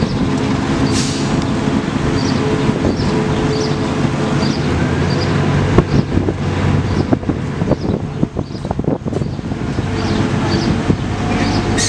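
Engine of heavy road-works machinery running steadily, with a few sharp knocks and clanks in the middle.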